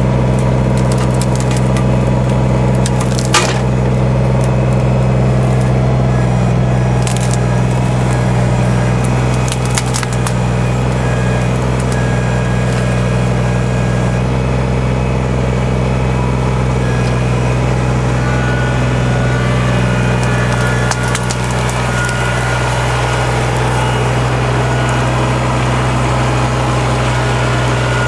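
Kubota diesel tractor engine running steadily while wood cracks and splinters, with sharp snaps about three and seven seconds in and a few more around ten seconds.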